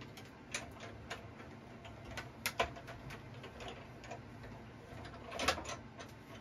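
Irregular light clicks and knocks from a hand-cranked Stampin' Cut & Emboss die-cutting machine as a die and cardstock are cranked through it, with the sharpest clicks about two and a half seconds in and near the end.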